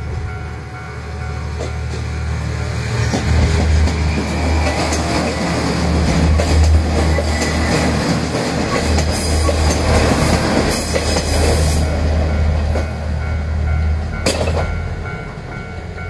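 A diesel railcar train passes over a level crossing: the low drone of its engine and the rumble of its wheels on the rails build up about three seconds in and fade near the end, with a sharp knock shortly before they fade. The crossing's electronic warning bell rings steadily, covered by the train while it passes.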